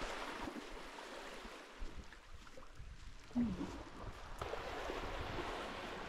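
Small sea waves washing on a sandy beach: a soft, even hiss of surf. A brief murmur of a voice comes about three and a half seconds in.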